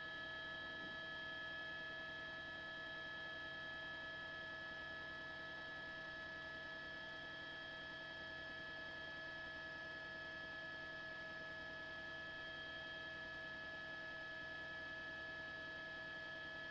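Faint, steady whine made of several held tones sounding together, with no change and no rhythm.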